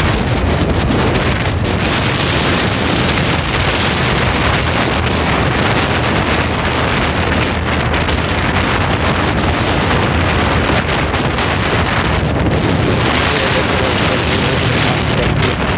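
Loud, steady wind rush on the action camera's microphone from a Bajaj Boxer 100cc motorcycle at cruising speed, with its single-cylinder four-stroke engine running underneath.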